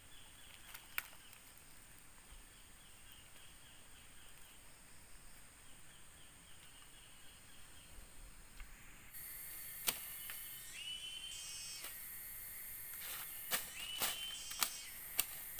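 Tropical forest ambience carried by insects: at first a faint, rapidly pulsing high chirr, then about nine seconds in it jumps louder to steady shrill insect buzzing with a call that steps up in pitch. Several sharp clicks or snaps come over it near the end.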